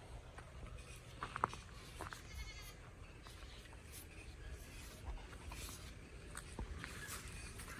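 A faint animal bleat, heard once about two and a half seconds in, over a low background with a few light knocks.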